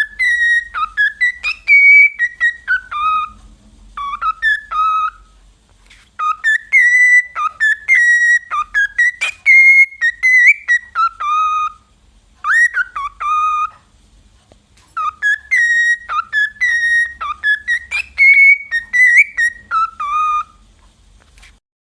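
A parrot whistling a tune in phrases of gliding notes, with brief pauses between phrases.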